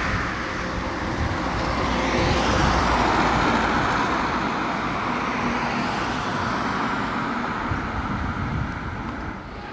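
Road traffic: cars passing by on the street, a steady noise of engines and tyres that eases off near the end.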